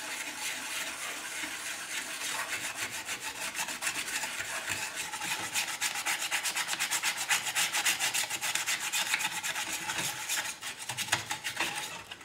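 Rapid back-and-forth scrubbing on the tinplate body of a toy locomotive, wet with white spirit, in quick steady strokes several times a second that ease slightly near the end.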